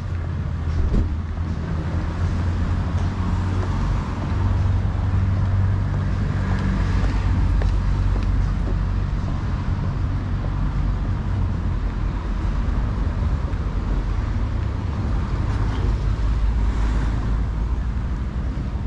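Street traffic: a motor vehicle's engine running close by with a steady low hum that fades about halfway through, over the continuous noise of road traffic.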